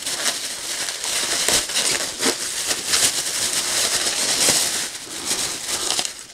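Clear plastic wrapping crinkling and rustling continuously as it is handled and pulled off a monitor's round metal stand base.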